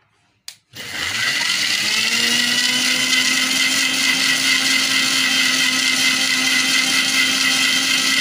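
Electric mixer grinder blending milk, sugar and banana in its jar. A click comes first, then the motor spins up with a rising whine and runs steadily at full speed.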